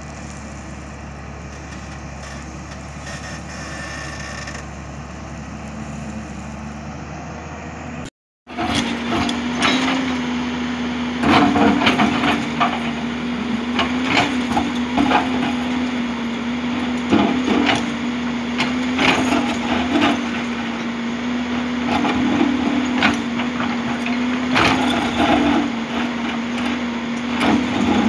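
JCB tracked excavator working: its diesel engine runs with a steady hum while the bucket scrapes and breaks through stony ground in repeated knocks, cracks and crunches. There is a brief dropout to silence about eight seconds in. Before it the machine runs more quietly, without the crunching.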